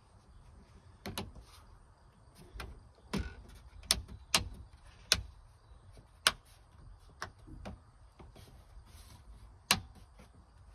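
About ten irregular sharp clicks and knocks as the plastic ePropulsion display is handled and pressed into its cutout in a fibreglass boat dashboard.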